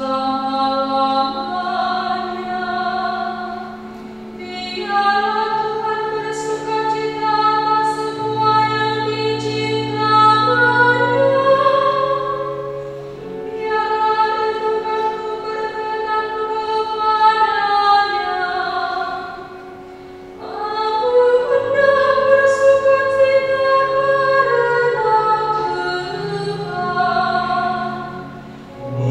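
A woman's solo voice singing a responsorial psalm verse in Indonesian through a microphone, in long phrases with short breaths about four and twenty seconds in, over held low accompanying notes.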